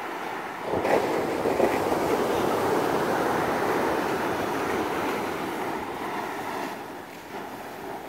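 Ocean surf: a wave breaking and washing up the beach, swelling suddenly about a second in and fading away near the end.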